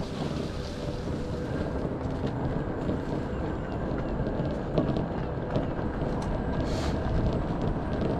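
Off-road Segway riding along a tarmac path: a steady rumble from its tyres and electric drive, with wind buffeting the microphone.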